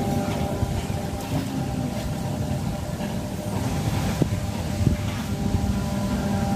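A steady mechanical drone from a running motor, with a low rumble under an even hum, and a couple of faint ticks about four and five seconds in.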